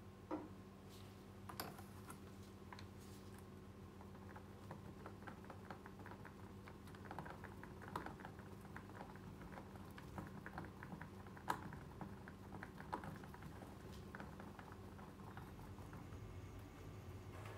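Faint, scattered clicks and light taps of resin being stirred in a small plastic cup, with a few sharper ticks, over a low steady hum.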